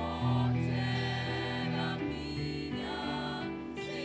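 Gospel music: a mixed church vocal group singing over instrumental accompaniment with sustained bass notes.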